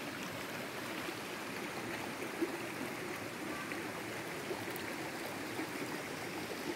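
Small shallow stream flowing over rocks: a steady, even rush of running water.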